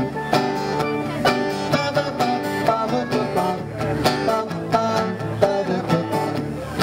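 Acoustic guitar strummed in a country-style song, an instrumental passage between sung lines, with steady regular strums.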